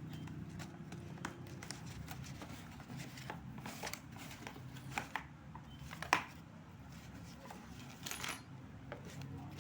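A motorcycle brake master cylinder kit being unpacked: small metal and plastic parts and packaging handled, with scattered clicks and rustles and one sharper click about six seconds in.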